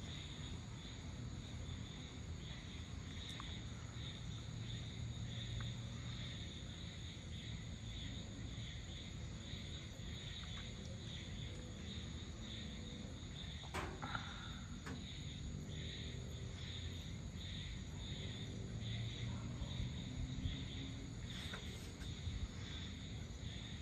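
Evening insect chorus: crickets chirping in a pulse that repeats about twice a second over a steady high trill, with a low background rumble. A single sharp click comes about fourteen seconds in.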